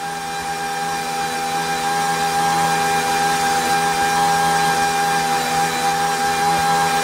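Alpha-Otto REV Force two-cylinder two-stroke engine, supercharged and direct-injected, running on gasoline at a steady speed, with a steady high whine over the engine note.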